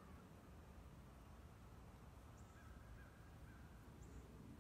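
Near silence: faint outdoor background hum with a few brief, faint high chirps.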